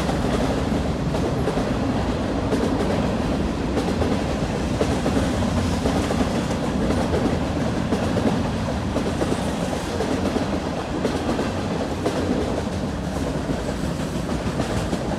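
Freight train cars rolling steadily past below: a continuous rumble and clatter of steel wheels on the rails.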